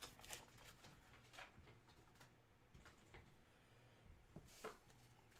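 Near silence with a few faint, scattered clicks and rustles of handling.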